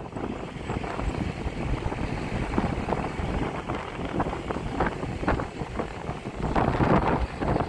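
Wind buffeting the microphone over the rumble of a moving vehicle, with scattered irregular crackles.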